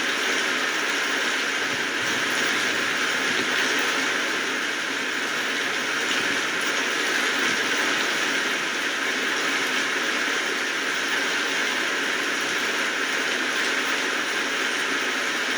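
Steady rain falling, an even hiss of drops with no change in strength.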